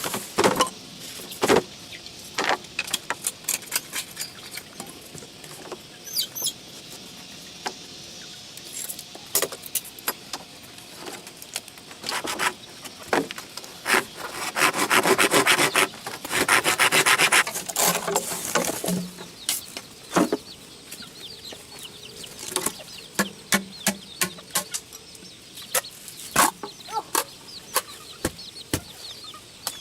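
Hand work on wood: scattered sharp knocks and taps, and about five seconds of rapid rasping strokes halfway through.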